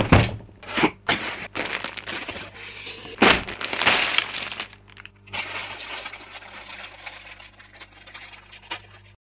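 Clear plastic bags of toy building bricks crinkling and rustling as hands spread and sort through a pile of them, with the bricks inside clicking against each other. There are a few sharp knocks in the first four seconds, and steadier, busy crackling after that.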